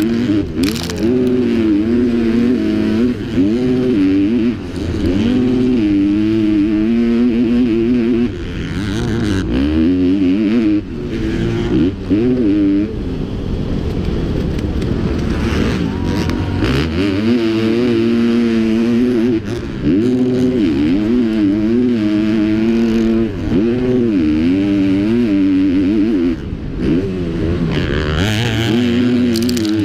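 Motocross bike engine heard from the rider's helmet, revving up and falling back again and again as the throttle is worked through the gears. It eases off into a lower, quieter run for a few seconds around the middle, then pulls hard again.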